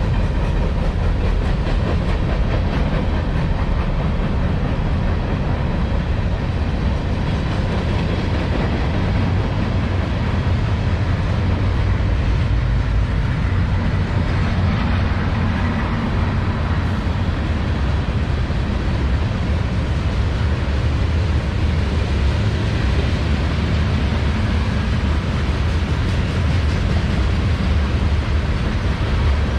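A freight train rolling steadily past, the wheels of its railcars running along the rails.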